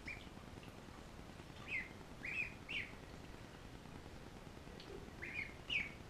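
Ducklings peeping: short, high calls, three in quick succession about two seconds in and two more near the end.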